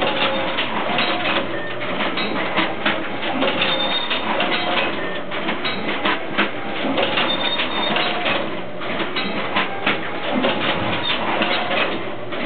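Automated return label printing machine running: fast, irregular clicking and clattering mixed with short chirping squeaks.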